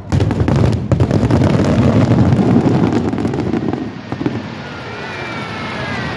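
Fireworks going off in a dense, rapid barrage of booms and crackles, the finale of the show, thinning out after about four seconds.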